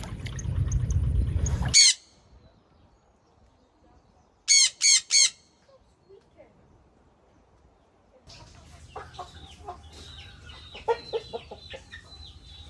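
Chickens clucking, with many short high peeps, from about eight seconds in. Before that, a steady noise cuts off about two seconds in, and three loud high calls come in quick succession about halfway through.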